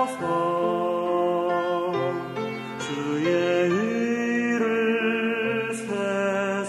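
Slow Korean contemporary Christian praise music with long held chords; about three seconds in, a melody line slides upward into a new held note.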